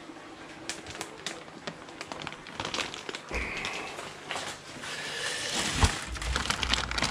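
Plastic fish-transport bags crinkling and rustling as they are handled, growing louder through the second half, with a sharp knock about six seconds in.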